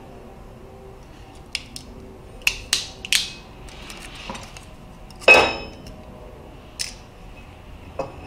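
Steel flat-bar pieces being handled and set down on a steel welding table: a series of separate sharp metal clinks and knocks, the loudest about five seconds in with a brief ring.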